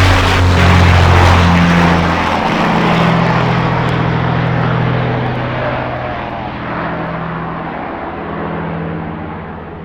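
An engine running loudly, its pitch dropping about two and a half seconds in, then holding steady as the sound gradually fades and dulls.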